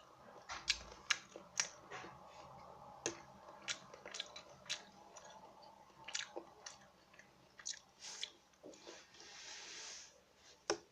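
Close-up mouth chewing a piece of oily canned seafood, soft and wet, with scattered sharp smacking clicks and a brief soft breathy hiss near the end.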